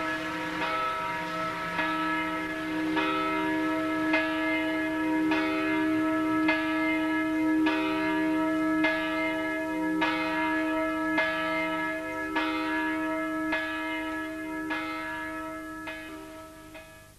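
A bell tolling in slow, even strokes about every second, each stroke ringing on into the next. It fades out near the end.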